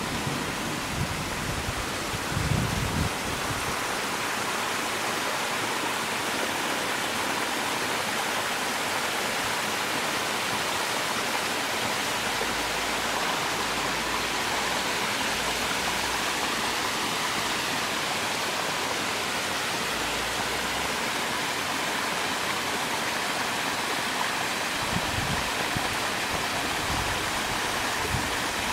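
Waterfall rushing steadily, a constant even roar of falling water. Low rumbles, like wind on the microphone, come in briefly near the start and again near the end.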